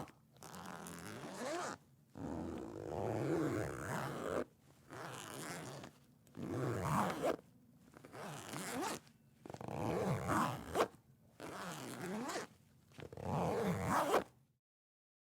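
Clothing zipper being zipped about eight times in a row, some pulls short and quick, others longer and slower, with brief pauses between them.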